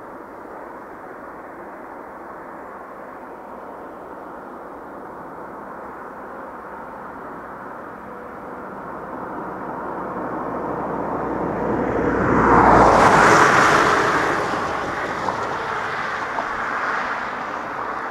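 A car passing on the road: its tyre and engine noise swells over several seconds, peaks about halfway through and fades as it drives away, over a steady background rush.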